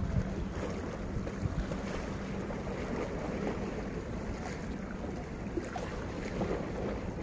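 Steady wind rumbling on the microphone over the wash of sea waves against the rocks.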